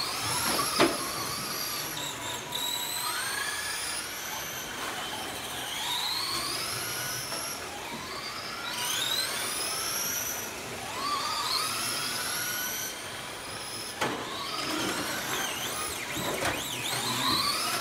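Electric radio-controlled race cars lapping, their motors whining up in pitch again and again as they accelerate, several overlapping. A couple of sharp knocks, about a second in and again about fourteen seconds in, from cars hitting each other or the boards.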